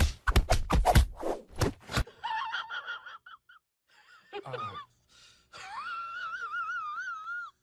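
A rapid run of loud strokes, a hand quickly patting a cat's fur, stops about two seconds in. Then come high, wavering vocal calls: short ones, one that slides down low, and near the end one long call with a trembling pitch.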